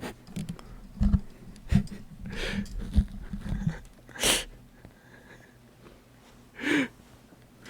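A man's short breathy exhales and snort-like laughs through the nose, over a few faint low thumps in the first half.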